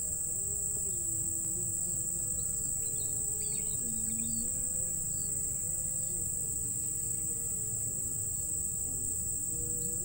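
Chorus of insects making a steady, unbroken high-pitched buzz, with faint low tones underneath that shift up and down in pitch.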